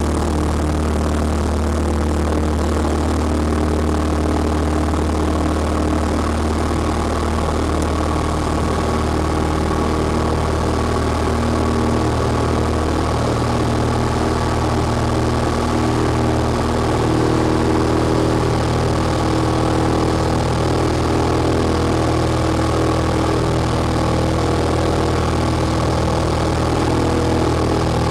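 A light single-engine propeller plane's piston engine running steadily at high power through the takeoff run and climb-out, heard from inside the cockpit. The engine note shifts slightly about halfway through.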